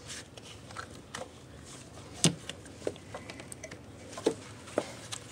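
Scattered light clicks and taps of gloved hands working the plastic electrical connectors of the ignition coils and handling the loose coils, the sharpest click a little past two seconds in.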